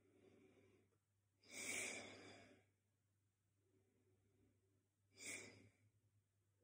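A man breathing out hard twice, about three and a half seconds apart, while holding a handstand, with faint breathing in between.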